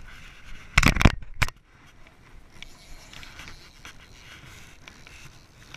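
Handling noise on a body-worn camera: a quick cluster of loud scraping knocks about a second in as the camera is bumped and shifted, then faint rubbing and crackling of jacket fabric against the camera.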